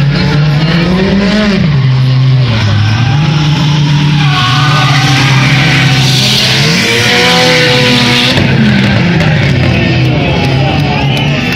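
Drift cars' engines revving up and down as they slide, with tyres screeching. The tyre hiss is heaviest about halfway through and eases off a little after.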